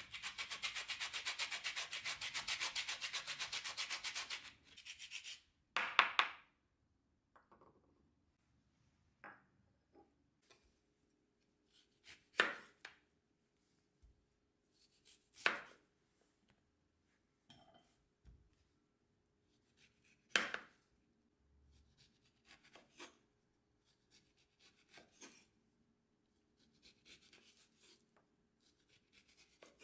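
An orange rind rubbed quickly back and forth over a fine citrus grater, a fast rasping scrape lasting about four and a half seconds. Then come separate knife strokes, one every two to three seconds, as the peel is sliced off the orange on a wooden cutting board.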